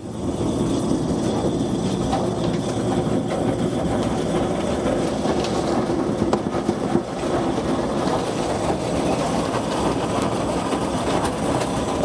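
Motorised grape crusher-destemmer running with a steady rattling clatter as grape clusters are tipped into its hopper and drawn in by the auger to be crushed.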